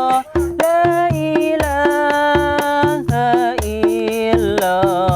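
Sholawat singing: one voice carrying a wavering, ornamented melody over a steady hand-drum beat, with a brief break just after the start.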